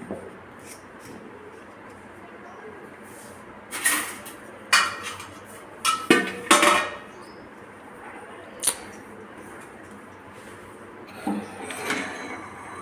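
Kitchen utensils clattering: a spoon or ladle knocking and scraping against metal cookware in a string of separate clinks and scrapes, busiest a few seconds in and again near the end.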